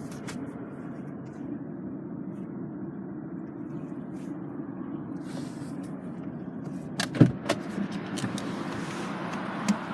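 Steady low hum inside a small car's cabin, with a few sharp clicks and a knock about seven seconds in and another click near the end.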